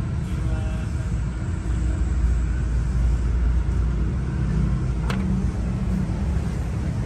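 A vehicle engine running steadily with a low rumble. A single sharp click about five seconds in.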